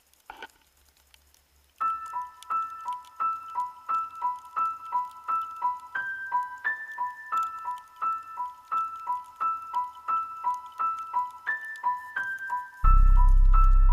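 Background music: a repeating keyboard melody of short high notes alternating between two pitches a few times a second, starting about two seconds in. A loud deep bass comes in near the end.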